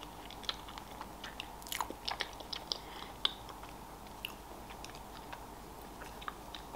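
A person chewing a mouthful of soft cake coated in white chocolate, heard as quiet, irregular small mouth clicks.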